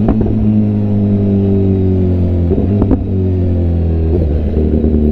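BMW S1000RR's inline-four engine running as the bike rolls through traffic, its revs sinking slowly. There is a short sharp crack at the start and another about three seconds in.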